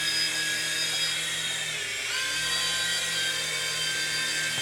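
ToyJoy M302 four-channel indoor remote-control helicopter hovering, its small electric motors giving a steady high whine. The pitch dips briefly about two seconds in, then comes back up.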